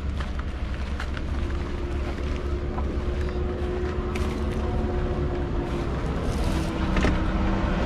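A motor-vehicle engine running steadily with a low rumble, with a few light knocks scattered through.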